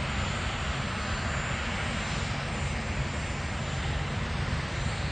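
A Marine Corps VIP helicopter running steadily, a continuous engine and rotor rumble with no pauses.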